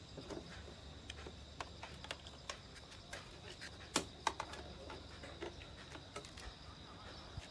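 Scattered light clicks and taps of small metal hardware being handled while a licence plate is screwed onto an electric scooter, the sharpest click about four seconds in. A faint steady insect trill runs underneath.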